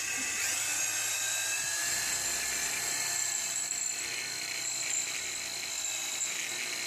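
Handheld electric drill running steadily with a high whine, its bit drilling out the seized remains of a broken spark plug from the spark plug channel of an aluminium cylinder head.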